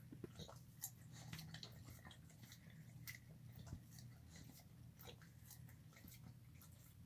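A bully-mix dog eating wet food from a bowl: faint, irregular chewing, lapping and lip-licking clicks.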